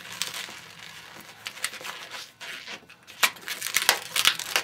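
Latex modelling balloon (a black 160) being handled, twisted and wrapped into a tire ring: rubbing and scraping of the latex against gloved fingers in short, irregular strokes, busier and louder in the second half.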